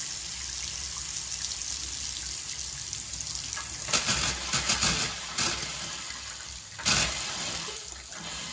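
Water running from an open single-handle Moen bathroom faucet into the sink basin, a steady splashing that slowly grows fainter as the line drains with the house's water supply shut off. A few sharp knocks come about four seconds in and again near seven seconds.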